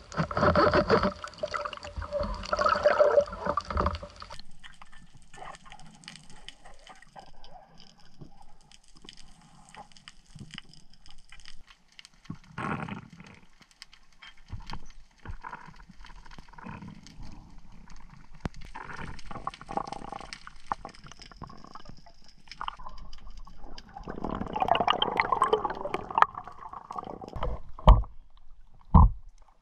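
Water gurgling and sloshing around an underwater action camera, louder for the first few seconds and again shortly before the end, with scattered small knocks. Near the end there are two short, loud thumps.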